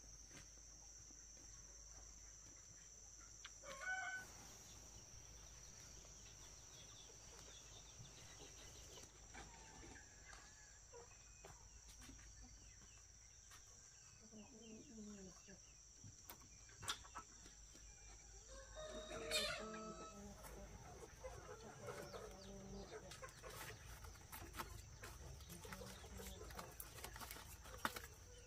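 Faint farmyard sounds: chickens clucking and calling now and then, with the loudest calls about two thirds of the way through, over a steady high-pitched hum and a few light clicks.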